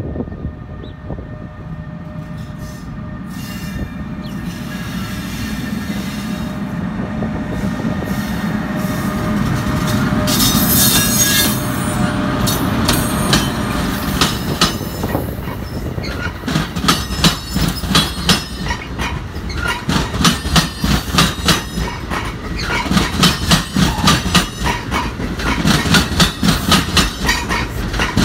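NJ Transit Multilevel passenger train approaching and passing close by. A rumble builds over the first ten seconds or so, with a high hiss from the wheels at its loudest. Then comes a steady, regular clickety-clack of the coach wheels over the rail joints as the double-deck cars roll past.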